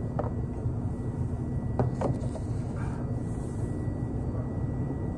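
Steady low rumble of a car ride heard from inside the vehicle, with a couple of light clicks about two seconds in.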